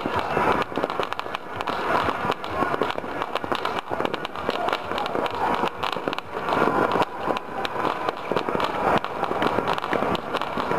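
Many fireworks and firecrackers going off at once, an unbroken crackle of irregular pops and bangs with no pause.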